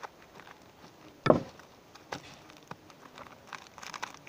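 A single dull thump on a table about a second in, followed by scattered light clicks and taps of things being handled.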